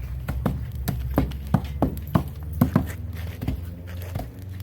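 Light, uneven knocks, two or three a second, as the freshly smelted iron bloom is struck gently to knock off clinging slag and charcoal. A steady low rumble runs underneath.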